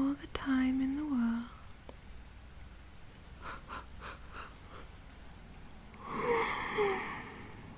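A woman's soft wordless vocal sounds close to the microphone: a hummed "mm" that dips in pitch at the start, a few faint clicks a few seconds in, then a long breathy sigh about six seconds in.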